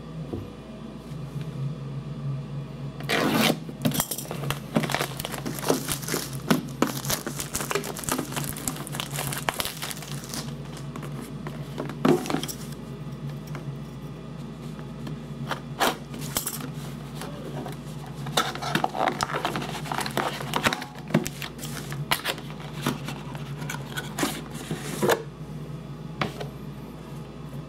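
Cardboard card box and its plastic wrapping being slit open with a small blade and torn away: crinkling, tearing and scraping, with a few sharp clicks and knocks as the box is handled and the tin inside is drawn out.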